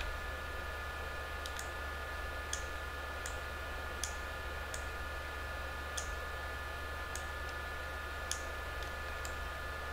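Computer mouse buttons clicking about a dozen times at uneven intervals as sculpting brush strokes are made, over a steady electrical hum.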